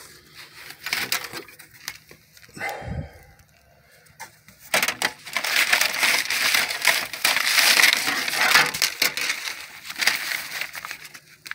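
Close rustling and crackling of something being handled right by the microphone, with scattered clicks at first and a dense stretch of crinkling from about five to nine seconds in.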